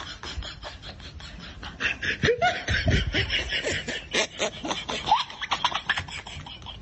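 People snickering and laughing in quick bursts, getting louder about two seconds in.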